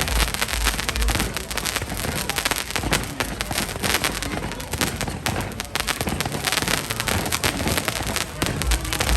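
Aerial fireworks going off in a dense run of rapid crackling pops and bangs, with deep booms near the start and again near the end.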